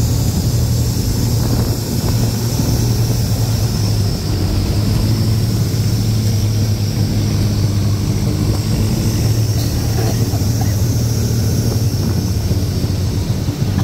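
A fishing boat's engine runs steadily under way, heard from on board as a deep, even drone.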